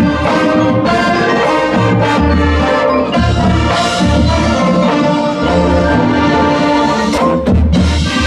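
High school marching band playing: brass holding chords over low bass notes and drums, with a few sharp percussion hits near the end.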